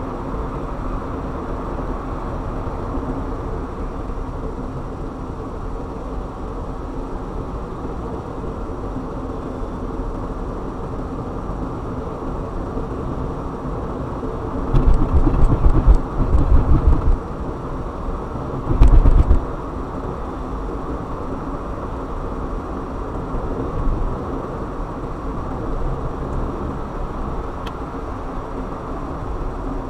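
Steady road and engine noise of a car being driven, a constant low rumble with a faint hum. About halfway through, a run of loud low thumps, then one more short burst of them a couple of seconds later.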